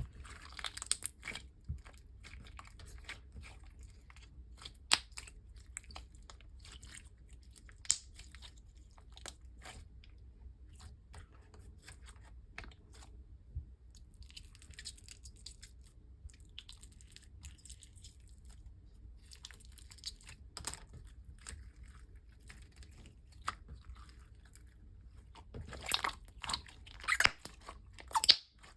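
Glossy, stretchy slime being squished and stretched by hand, with scattered wet clicks and pops. They thin out for a few seconds about a third of the way in and bunch up loudest near the end.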